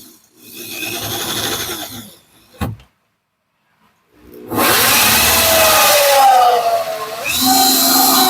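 Corded electric drill driving a hole saw into a wooden door through a doorknob jig. It starts up loud about four seconds in, after a shorter noise and a sharp click, and its pitch sags as the saw bites into the wood, then picks back up and holds steady.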